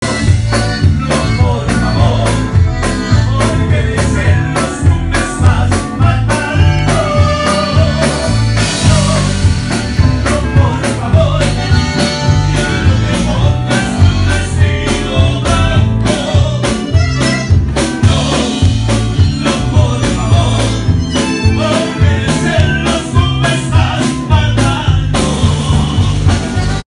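Loud amplified live band music with a man singing over a steady drum beat.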